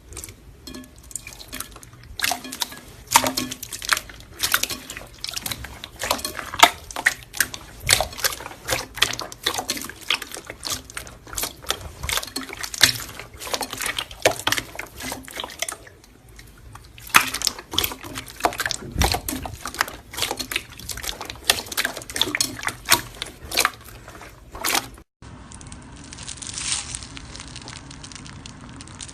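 Slime being squeezed and kneaded by hand, making rapid, irregular wet popping and clicking sounds, with a brief pause about halfway. Near the end it gives way to a softer, steadier noise.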